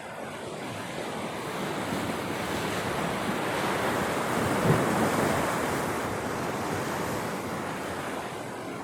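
Ocean surf washing against the rocks of a jetty. The noise swells to a peak about halfway through, with a brief louder jolt, then slowly fades.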